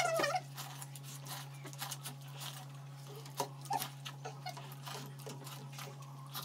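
Faint slurping and lip-smacking of people eating Maggi instant noodles face-down from plates without hands: a scatter of small wet clicks over a steady low hum.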